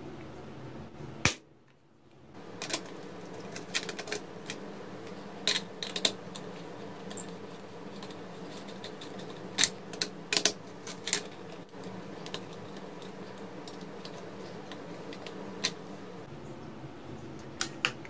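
Scattered sharp plastic clicks: a small DIN-rail switch flipped off and back on, and a plug-in relay pulled from and pressed into its socket, over a steady low hum. The loudest click comes about a second in, with a cluster of clicks through the middle and a few more near the end.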